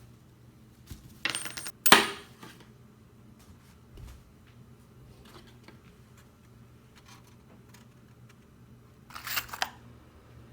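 Small metal objects clinking and rattling against a hard surface in short bursts: a rattle about a second in, a sharp clack just before two seconds, and another cluster of clinks near the end.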